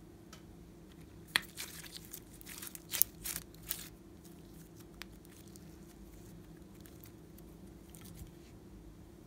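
Green slime being stretched and pulled by hand, giving a cluster of sharp, sticky clicks and crackles as it pulls apart, from about a second and a half in until nearly four seconds, then only a few faint clicks.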